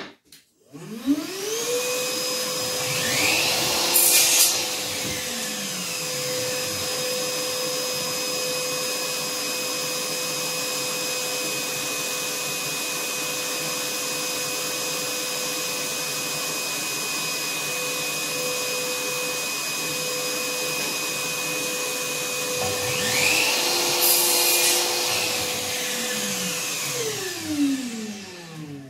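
An electric vacuum cleaner motor spins up about a second in and runs with a steady whine for about 25 seconds, then winds down near the end. Two brief louder rushes of air come a few seconds in and again near the end.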